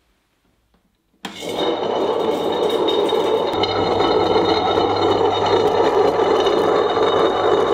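Stone mélangeur chocolate grinder switched on about a second in and running empty: a loud, steady motor hum and high whine with the grinding of two stone rollers turning on the stone base of the bowl.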